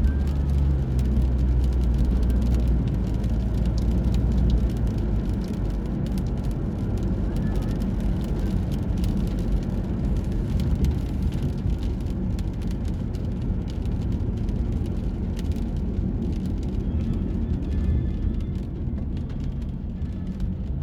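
Steady low rumble of a car on the move, heaviest for the first few seconds, with a scatter of small ticks over it.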